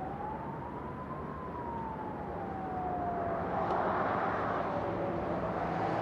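A siren wailing, its pitch rising slowly and falling again in a cycle of about five seconds, over steady background noise. A brief swell of noise comes about four seconds in.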